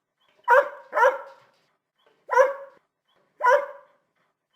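Goldendoodle dog barking: four short barks, the first two in quick succession about a second in, then two single barks about a second apart.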